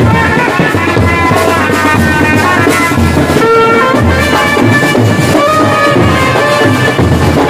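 Indian street brass band playing: trumpets carry the melody over a big bass drum, beating about once a second, and side drums.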